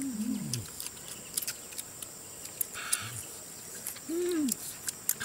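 Short, low hummed "mmm" sounds of people savouring food as they eat, one at the start and another about four seconds in, with scattered light clicks between them.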